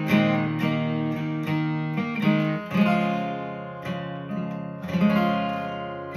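Acoustic guitar being strummed in a steady rhythm of chords, each stroke ringing on into the next.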